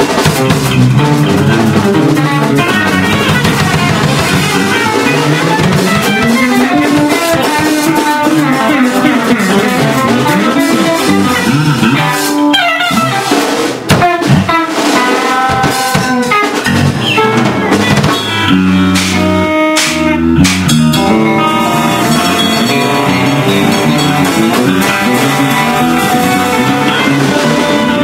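Live instrumental band playing: electric guitar, bass and drum kit in a busy, angular spaz-jazz piece, with a cluster of sharp hits and a brief break about halfway through.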